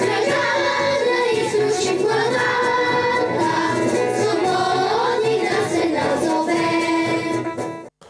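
A group of children singing a song together into microphones, many voices carrying one melody. It cuts off abruptly just before the end.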